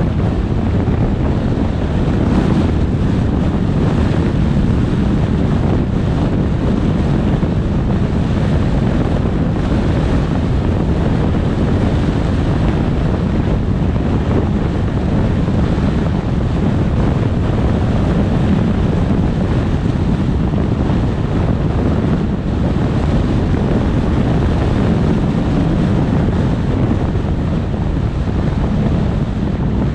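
Wind buffeting the microphone: a steady low rumble that runs on without a break.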